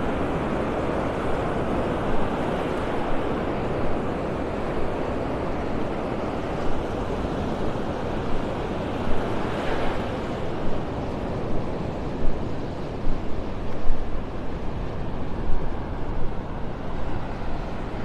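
Small Gulf of Mexico waves washing up the sand, a steady rush of surf. In the second half, wind gusts on the microphone.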